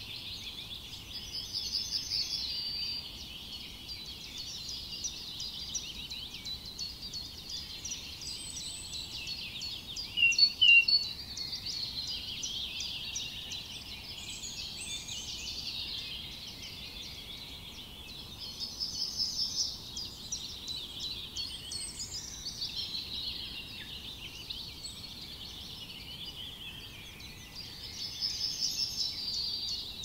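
A dense chorus of songbirds chirping and singing, with a quick trilled song heard three times and one louder, short burst of calls about ten seconds in.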